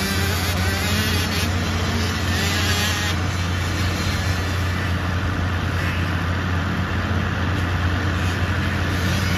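Several 110cc single-cylinder four-stroke pit bike engines running at once around the motocross track, blending into a steady drone with wavering engine pitch.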